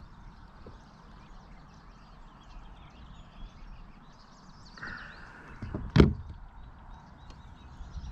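Quiet open-air background with faint high chirps, and one sharp knock about six seconds in, as of gear being handled and bumped in a kayak.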